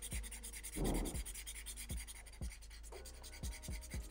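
Black marker rubbing back and forth on paper in short, irregular strokes, filling in a dark shadow, with one louder stroke about a second in.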